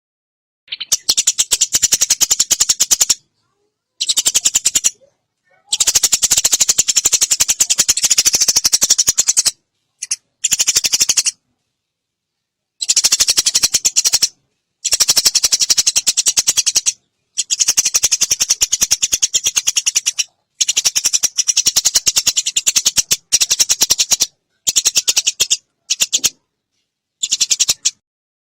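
Eurasian tree sparrow giving long, rapid, high-pitched chattering rattles. They come in about a dozen bouts of half a second to four seconds each, with short silences between them.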